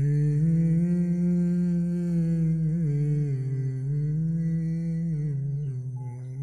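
A voice humming a slow melody without words in long held notes that slowly rise and fall, starting abruptly.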